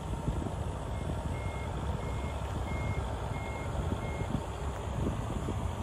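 A vehicle's reversing alarm beeping six times at an even pace, about one and a half beeps a second, then stopping, over a steady low rumble.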